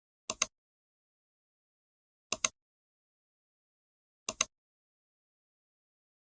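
Three sharp computer mouse clicks about two seconds apart, each a quick pair of ticks, with dead silence between.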